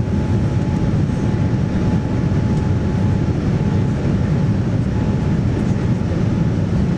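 Steady cabin noise inside a Boeing 787-9 airliner in flight: a constant low rush of engines and airflow, with a faint thin tone held steady above it.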